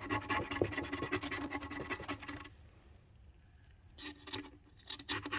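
A hand tool scraping carbon deposits off the runner flaps of an Audi 4.2 V8 intake manifold, in quick repeated strokes. The scraping stops about two and a half seconds in and starts again after a pause of over a second.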